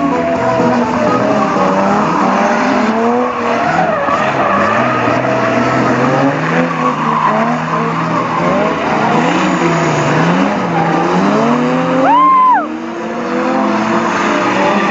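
Drift car spinning donuts: the engine revs up and down in repeated waves while the spinning rear tyres skid and squeal. About twelve seconds in, a brief sharp high whine rises and falls, the loudest moment.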